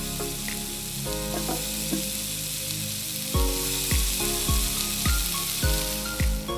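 Steak sizzling as it is laid on the hot ridged plate of an electric grill pot, a dense, steady frying hiss. Background music plays underneath, with a steady beat coming in about halfway through.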